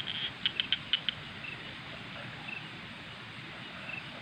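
Night insects such as crickets chirring steadily. A quick run of sharp chirps comes in the first second, and a short high chirp repeats about once a second throughout.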